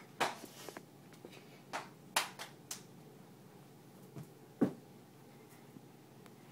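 Scattered sharp taps and soft thumps of a child's hands and feet landing on a carpeted floor during a back walkover and cartwheels. The loudest come about two seconds in and again near five seconds.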